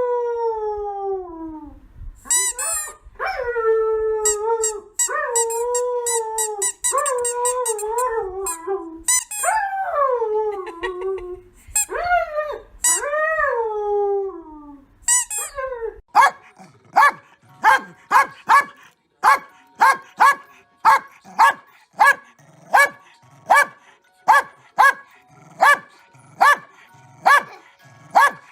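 A dog howling in long, wavering calls that fall in pitch, with short high squeaks among them. About sixteen seconds in, this gives way to a dog barking steadily, about twice a second.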